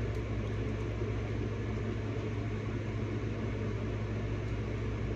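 Steady low hum with an even hiss over it: the room's background noise, with no distinct events.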